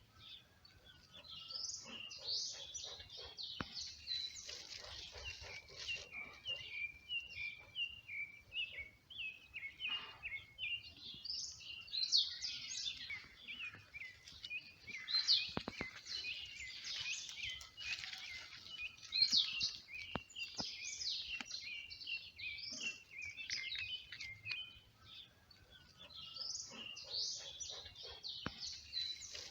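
Small birds chirping rapidly, many short high-pitched notes overlapping in a continuous chatter that grows busier and louder in the middle.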